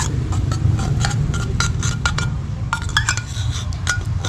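Metal spoon scraping and clinking against the inside of an opened tuna can, working the tuna out: a quick, irregular run of sharp clinks and scrapes, some with a brief metallic ring. A steady low rumble sits underneath.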